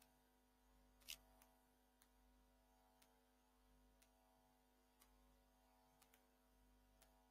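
Near silence: room tone with a faint steady hum and faint ticks about once a second, with one sharper click about a second in.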